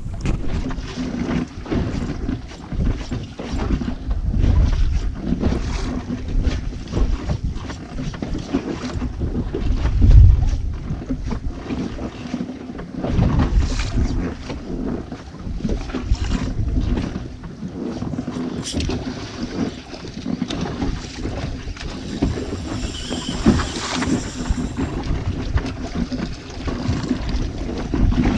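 Wind buffeting a GoPro's microphone aboard a small fishing boat, an uneven low rumble with a few stronger gusts. A faint steady hum runs underneath.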